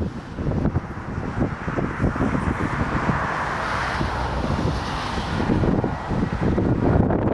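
Strong gusty wind buffeting the microphone, with the engines and propellers of a Dash 8 twin turboprop airliner on a crosswind landing approach. The aircraft's rushing noise grows louder from about two seconds in and eases off near the end.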